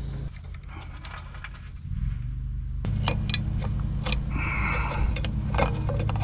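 Metal parts and hand tools clinking and rattling as they are handled, with a short scrape just past the middle, over a steady low hum.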